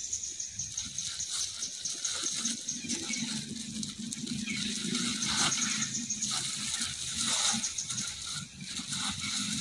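Steady high-pitched insect buzzing with a fast, even pulse. A low hum joins it a couple of seconds in, and there are a few short smacking sounds in the middle.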